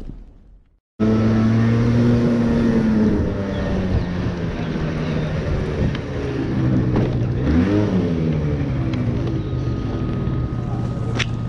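Small motor scooter engine running while riding along a street, with wind rushing over the helmet-mounted microphone. About two thirds of the way through, the engine briefly revs up and drops back. In the first second, the tail of an intro sound effect fades out before the engine comes in.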